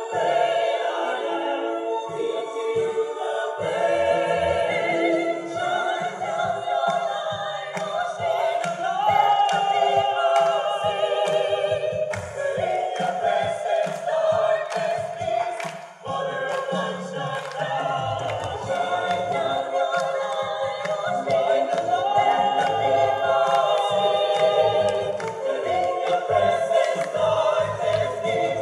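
Mixed choir singing unaccompanied in several-part harmony, amplified through stage microphones, with a brief pause between phrases about halfway through.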